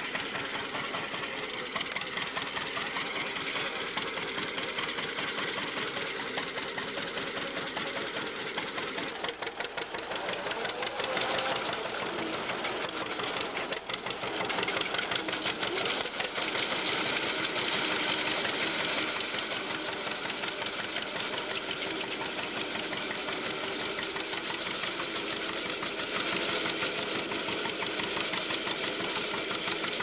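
Old John Deere two-cylinder tractor engine running with a steady, even firing beat while it pulls a grain binder, the binder's reel and cutter clattering along with it; somewhat louder in the second half.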